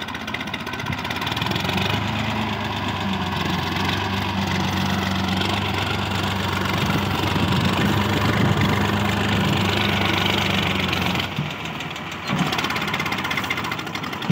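Swaraj 855 tractor's three-cylinder diesel engine running steadily under load as it pulls a plough through dry soil. The engine gets louder over the first couple of seconds, holds, then drops away about eleven seconds in as the tractor moves off.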